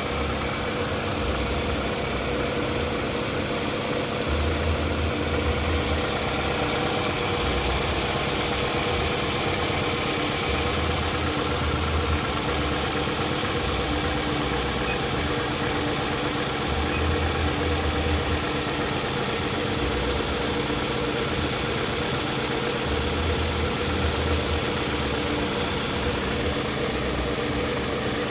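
Toyota Camry engine idling with a cylinder 1 misfire (trouble code P0301).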